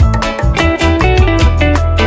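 Instrumental passage of a studio-recorded song: a plucked guitar melody over bass and a steady drum beat, without vocals.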